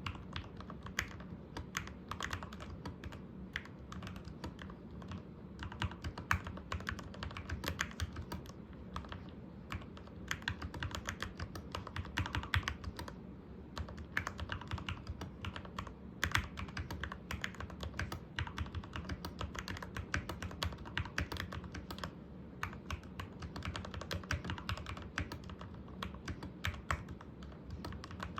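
Continuous typing on a Keychron K6 mechanical keyboard with Gateron Milky Yellow Pro linear switches: a fast, steady stream of keystrokes with occasional louder strikes.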